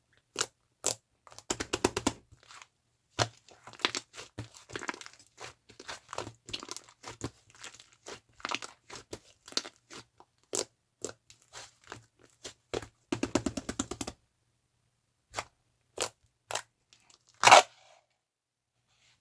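Slime being squished and stretched by hand, giving irregular sticky clicks and pops, sometimes in quick runs of many pops together. There are a couple of short pauses, and the loudest single pop comes near the end.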